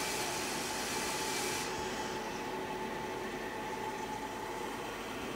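Coffee vending machine dispensing into a paper cup: a steady machine hum with a loud hiss over it that drops away about a second and a half in.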